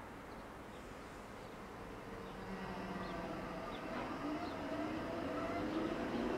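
Berlin S-Bahn class 480 electric train pulling away from the platform: its electric drive whines in several tones that rise together as it gathers speed, growing steadily louder.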